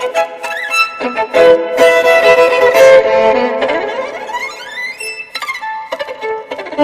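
Instrumental music led by a violin, playing held notes, with a long rising slide in pitch about halfway through.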